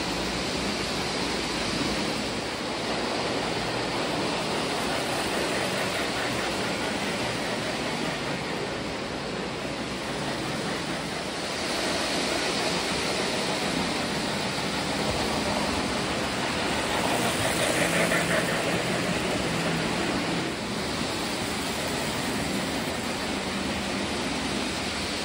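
Lionel O-gauge model trains rolling on the layout's track: a steady rushing rumble of wheels on rail, growing a little louder for a couple of seconds past the middle as the passenger cars come close.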